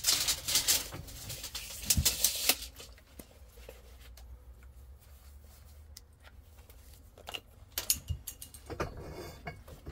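Clatter, clicks and knocks of a steel pipe and hand tools being handled: a dense rattling stretch for the first two and a half seconds, then scattered clicks and a few sharper knocks near the end.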